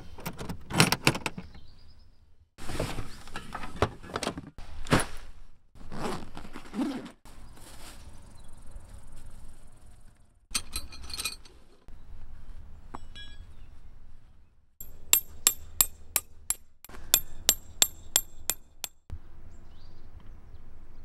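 Clinks and knocks of hard metal or glass items being handled, with a quick run of sharp ringing taps, about five a second, about fifteen seconds in.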